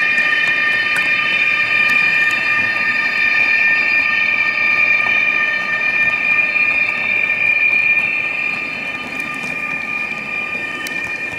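H0-scale Trix model of a DB class 147 TRAXX AC3 electric locomotive running with its built-in digital sound: a steady electric whine of several high tones held at one pitch, over the rumble of the train rolling on the model track.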